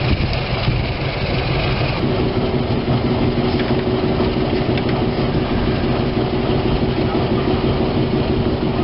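Diesel shunting locomotive's engine running steadily as the locomotive creeps slowly up to another locomotive's buffers to couple. A steady humming tone joins the engine sound about two seconds in.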